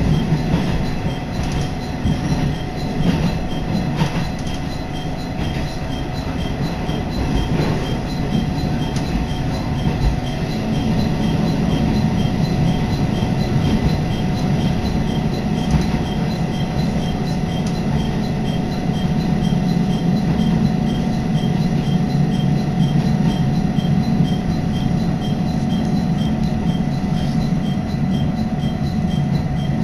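Steady running noise inside a moving diesel railcar: an engine drone with wheels rumbling on the rails.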